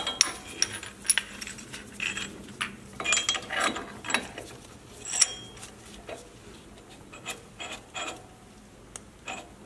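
Scattered metal clicks and clinks as the adapters and threaded screw of a brake caliper piston compression tool are handled and fitted into a front brake caliper. The sharpest tap comes about five seconds in, and the taps thin out after that.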